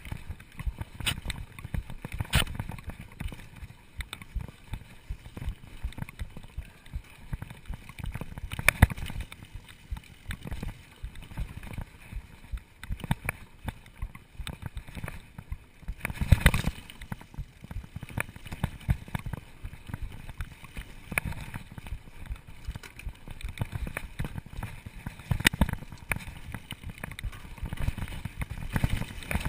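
Mountain bike ridden over a dirt singletrack: a low rumble of tyres rolling on the trail, broken by frequent irregular knocks and rattles as it hits bumps, the hardest jolt about halfway through.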